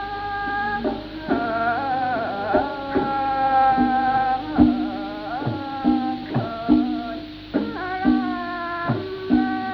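Thai classical khrueang sai pi chawa ensemble playing: a held melody that bends in pitch over steady low tones, with regular drum strokes and plucked strings. The sound is from an old cassette transfer, with a dull top end.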